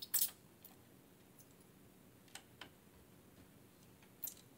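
Scattered small clicks and taps of hands and a screwdriver working at small screws and parts in the plastic underside of a Dell Inspiron 14R laptop. A quick cluster of clicks comes at the start, a few faint ones follow, and one sharper click comes near the end.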